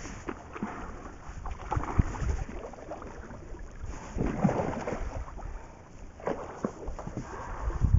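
Water splashing on and off as a hooked muskie thrashes at the surface beside a boat.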